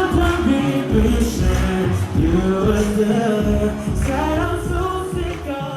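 Pop or R&B song with a sung vocal over a heavy bass beat, starting to fade out near the end.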